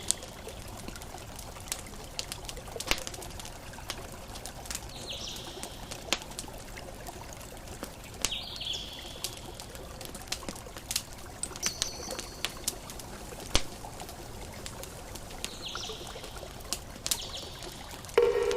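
Campfire crackling, with sharp irregular pops over a steady wash of ocean waves. A few short bird chirps come and go, and a louder pitched call starts right at the end.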